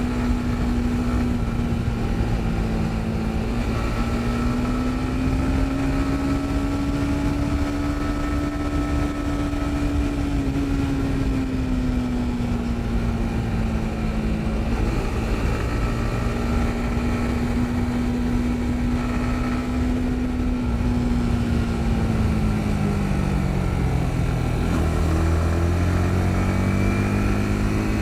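Yamaha MT-15's single-cylinder engine running under way, its pitch rising and falling gently with speed. Near the end the pitch sinks as the bike slows, then climbs again. Steady rushing wind and road noise runs underneath.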